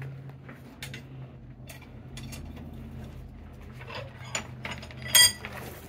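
Metal clinking and scraping as tongs work hot steel clamped in a blacksmith's leg vise, with one loud ringing clink about five seconds in. A steady low hum runs underneath.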